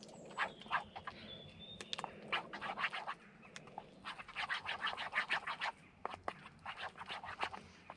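Wooden spoon mashing and scraping potato in a Trangia frying pan: quick runs of short scrapes against the pan, several a second.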